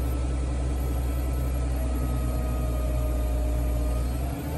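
JCB Fastrac's AGCO Power 6.6-litre six-cylinder diesel running steadily at about 1,200 rpm under load on a PTO dynamometer, heard from inside the cab. The low drone dips slightly about four seconds in.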